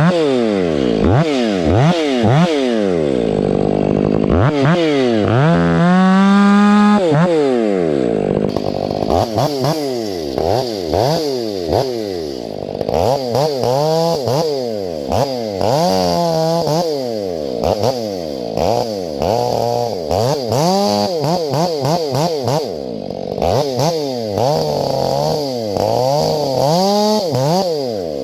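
Stihl 500i two-stroke chainsaw revving up and down again and again, held at full throttle for a couple of seconds about six seconds in, while bucking firewood.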